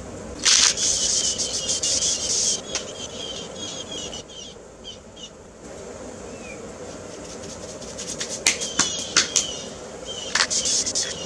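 Aerosol spray paint can spraying: a hiss of about two seconds starting half a second in and a shorter burst near the end, with scattered clicks and rattles between.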